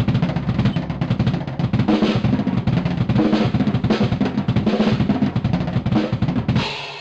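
Drum kit played fast, with rapid bass drum and snare strokes. It ends near the end on a final hit that rings out and fades.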